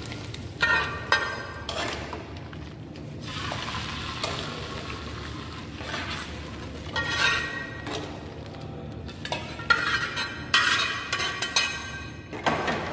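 Hot oil tempering of fried shallots, red chillies and curry leaves sizzling as it is poured into a pot of rasam, with metallic clinks of the frying pan tapped on the pot's rim near the start and around the middle. Near the end a ladle is stirred in the pot, clinking against the aluminium.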